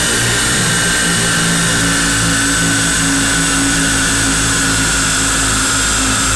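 Nissan Almera's 1.5-litre four-cylinder petrol engine running at speed under load on a chassis dynamometer, driving the front wheels on the rollers. The engine note and a high whine from the tyres and rollers hold fairly steady.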